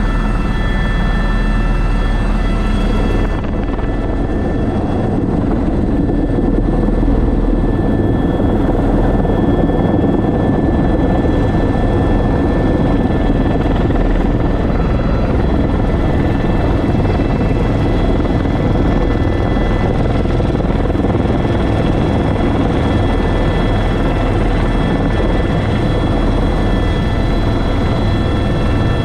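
Airbus H125 (AS350 B3) helicopter heard from inside the cockpit: steady rotor and turbine noise with several steady high whining tones. A few seconds in, the high whine dims and the lower rotor noise grows, as the helicopter descends with a sling load into settling with power.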